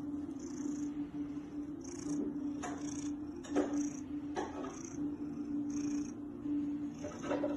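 Mother cat purring steadily while her kittens nurse. The purr dips briefly about once a second, and a few short clicks sound over it.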